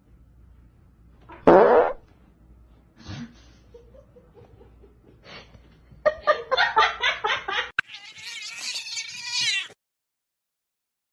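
Domestic cat meowing in several separate calls, the loudest about one and a half seconds in, with a longer wavering call near the end.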